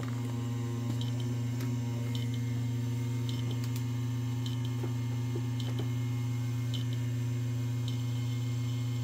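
Steady low hum from a running bare PC test bench: a cheap no-name ATX-500 power supply, whose fan is noisy, with hard drives spinning. A faint double tick comes about once a second.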